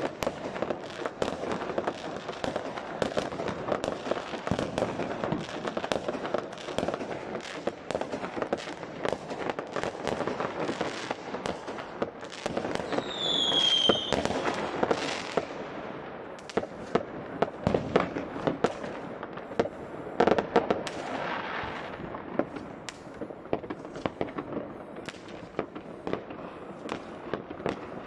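Many fireworks going off at once across the town: a continuous crackle of scattered bangs and firecrackers, near and far, with a short whistle falling in pitch about halfway through.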